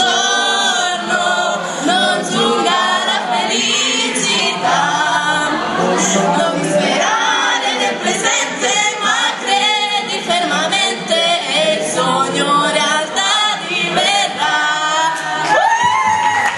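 A mixed group of young men and women singing a ragged, ramshackle song together into a microphone, with a louder held note near the end.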